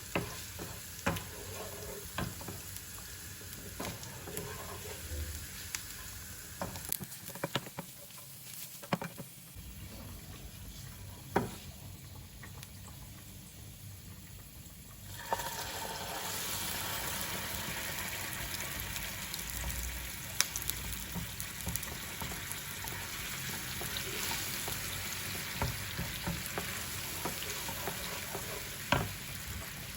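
Cooking in a pan: scattered clinks and knocks of a utensil, then about halfway through a steady sizzle sets in and carries on under further taps and stirring.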